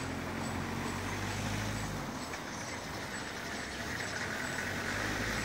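Steady motor-vehicle noise: a low engine hum that eases off about two seconds in and comes back stronger near the end.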